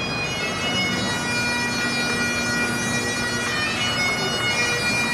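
Bagpipes playing a tune: steady high notes that change every so often over a continuous drone.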